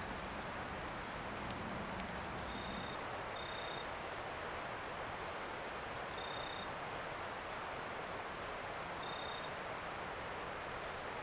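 Campfire burning hot over a steady rushing hiss, with a few sharp crackles and pops, the loudest two about one and a half and two seconds in. A short, high, steady peep recurs four times.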